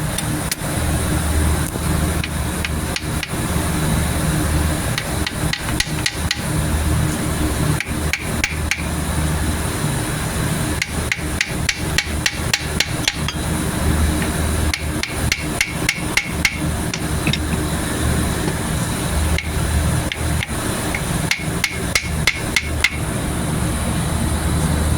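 Hammer blows on metal in quick runs of several light strikes a second, each with a short ringing note, over a steady low hum.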